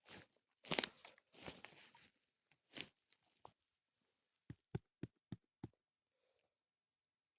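A few crunching, tearing rustles, then five quick dull knocks, about four a second, near the middle.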